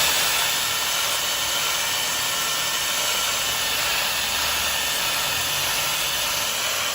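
Electric drill spinning sandpaper inside a motorcycle connecting rod's small-end bore, honing it to fit the piston pin. A steady hissing sound.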